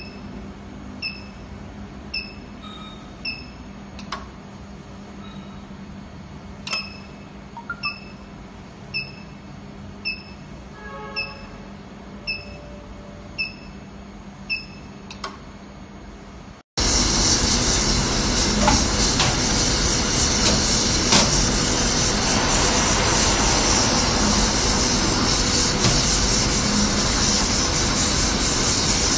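Short high-pitched electronic beeps about once a second over a low hum, then about two-thirds of the way in an abrupt cut to the loud, steady hiss of a gas brazing torch flame on an aluminium heat exchanger's tube joints.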